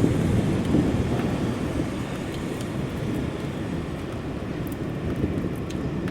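Rain falling in a city street ambience, under a low rumble that is loudest in the first second and then eases off, with faint scattered drip ticks.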